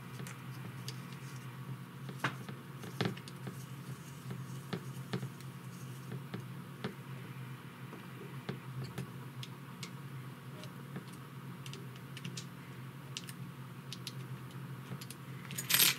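Small scattered clicks, taps and light scrapes of a hand screwdriver and parts being handled while the last screws go into a carbon-fibre drone frame, over a steady low hum. A louder clatter comes near the end.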